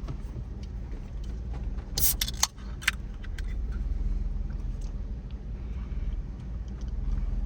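Jeep Wrangler JK's 3.8-litre V6 pulling at low speed in four-wheel-drive low range, first gear, heard from inside the cabin as a steady low drone. About two seconds in comes a short burst of rattling and clattering, with loose things in the cab shaking over the rough road.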